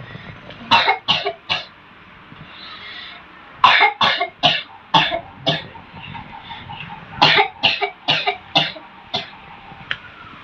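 A person coughing in repeated fits: three coughs about a second in, then two runs of about six quick coughs starting near four and near seven seconds. It is the patient's abnormal cough, which the healer puts down to a jinn disturbance.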